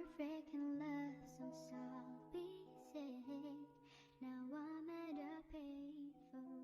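Closing bars of a nightcore edit of a pop ballad cover: sped-up, pitched-up music with held notes over a soft bass line.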